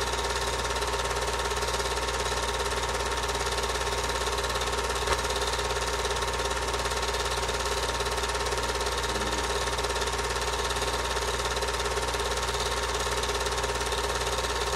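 Home-movie film projector running steadily, its mechanism making a constant machine sound with one small click about five seconds in.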